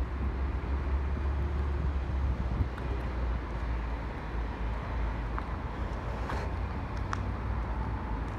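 Urban street ambience: a steady low rumble of road traffic under an even background hiss, with a few faint light ticks in the second half.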